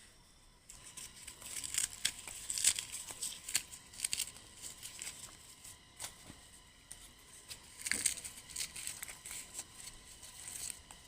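Dry rustling and crackling with many small irregular clicks, as of dry plant material being handled and rubbed.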